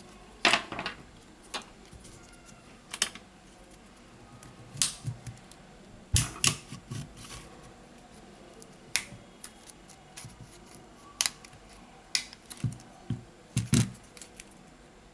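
Irregular sharp clicks and taps, a dozen or so, from a precision screwdriver and a plastic pry tool working on the plastic and metal parts of a Samsung Galaxy A70 smartphone's frame during disassembly. The loudest come about half a second in and near the end.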